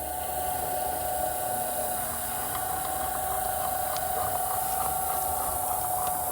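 Ryobi cement mixer switched on for its first test run, running steadily with an even whine; it is quiet.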